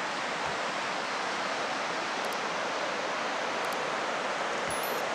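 Steady rushing of a stream, an even hiss that holds without a break.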